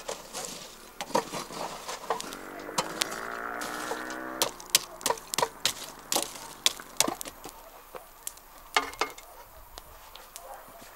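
A chicken gives one long call lasting a couple of seconds, starting about two seconds in and sagging in pitch at its end. Sharp taps and knocks come irregularly throughout.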